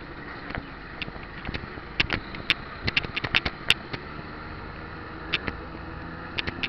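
A car driving slowly, heard from inside the cabin: a steady road and engine rumble with a run of sharp, irregular clicks and rattles, thickest from about two to four seconds in.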